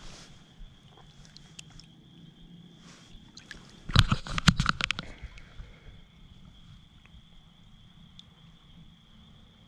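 A small fish released into the lake hits the water in a quick run of splashes about four seconds in, over a steady high trill of night insects.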